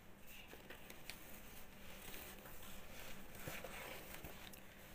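Faint rustling and rubbing of cloth as a wide-brimmed fabric sun hat with an attached face hood is pulled on and adjusted by hand, with a few light scratchy ticks.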